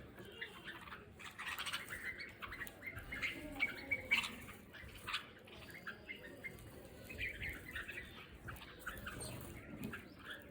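A flock of birds chirping and squawking, many short calls overlapping, busiest and loudest around three to five seconds in.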